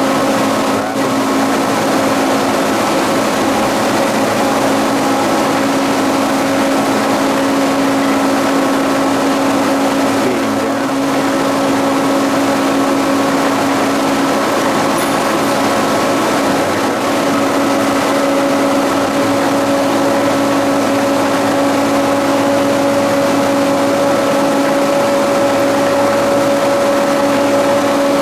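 52-inch King vertical boring mill running under power, a steady mechanical hum and whir with two constant tones, one low and one about an octave higher.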